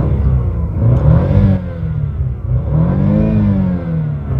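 BMW car engine revved in park, rising and falling in pitch twice.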